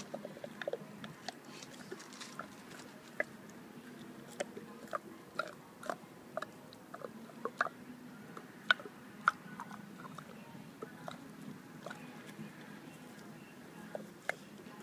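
Bullmastiff chewing on something hard, with irregularly spaced sharp cracks and crunches, a few louder than the rest.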